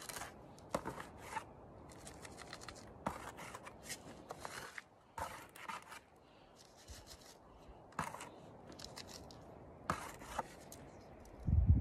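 Hands scraping and pulling at dry, gravelly soil and tangled tree roots in a shallow dig hole: a run of short, irregular scratchy scrapes and rustles, with one dull thump near the end.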